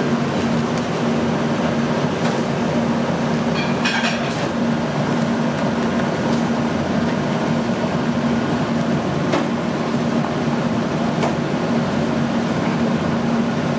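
Steady mechanical drone of kitchen ventilation with a constant low hum, and a few light clicks of lobster tail shells being handled on a cutting board.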